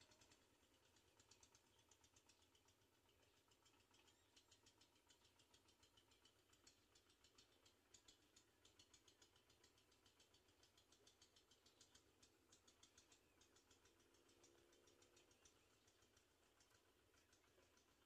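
Near silence, with a faint, rapid high-pitched ticking that carries on throughout.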